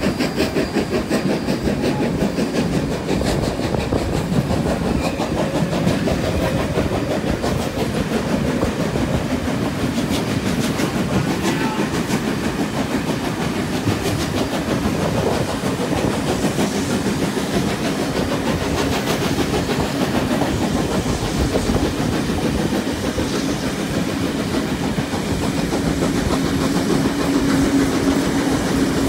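Two steam trains running side by side on parallel tracks, heard from aboard one of them: wheels clattering over the rails amid steam locomotive exhaust. A steady low tone comes in near the end.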